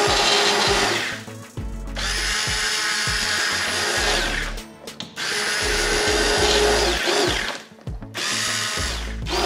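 Immersion blender running in a pot of cooked broccoli soup, puréeing it. It runs in bursts of two to three seconds with three short pauses between them.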